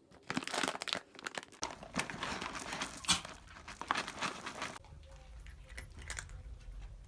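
Plastic cat food packaging being torn open and crinkled in irregular crackles for about five seconds, then only a faint low hum.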